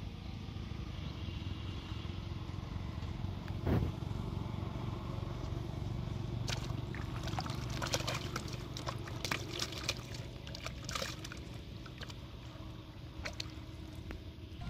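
A freshly caught fish flapping and splashing in shallow water in a plastic basin, in a quick run of splashes from about six and a half to eleven seconds in. Earlier there is a single thump, near four seconds in. A steady low rumble runs underneath.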